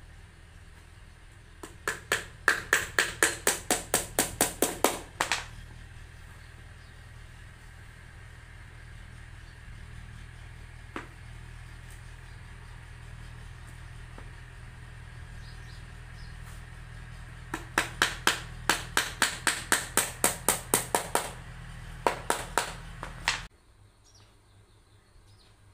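Small hammer tapping tiny nails into a cardboard box in two quick runs of about four taps a second, with a few more taps near the end. A steady low hum runs underneath and cuts off suddenly near the end.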